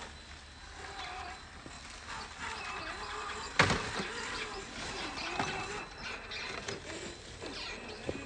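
Electric motor and geared drivetrain of an RC scale crawler truck whining, the pitch rising and falling with the throttle. A sharp knock about three and a half seconds in, with a few lighter clicks later.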